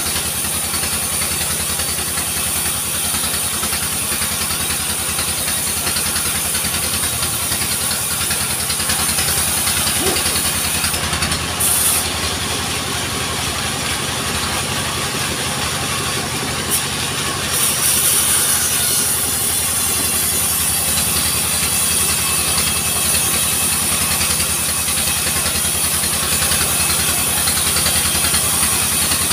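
Engine-driven log sawmill running steadily while a log is fed through it, the engine's hum under a high whine from the saw. Around the middle the high whine fades for several seconds, then comes back a little louder.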